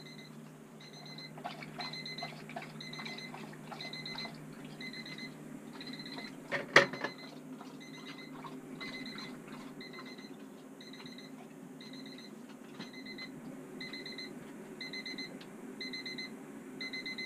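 Temperature alarm on a weather-station display beeping about twice a second, a short high electronic beep warning that a refrigerator sensor reading is out of its set range. A steady low hum runs underneath, and one sharp knock sounds about seven seconds in.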